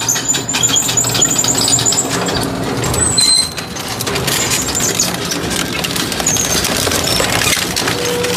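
Industrial shredder grinding up scrap metal: a dense, continuous crunching clatter, with high metal-on-metal squeals in the first couple of seconds and again about three seconds in.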